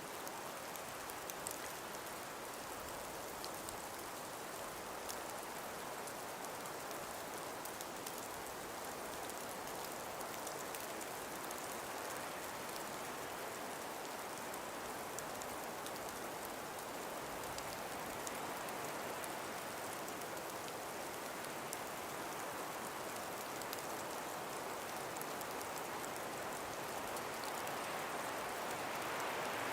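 Steady breeze through frost- and ice-covered forest trees: an even hiss with faint scattered ticks, swelling slightly near the end.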